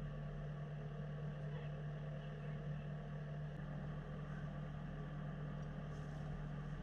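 An engine idling steadily at one constant low pitch.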